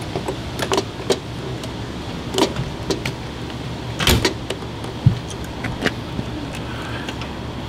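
Clicks and knocks of a motorcycle windshield and its metal mounting brackets being handled and fitted at the handlebars, with a heavier knock about four seconds in. A steady low hum runs underneath.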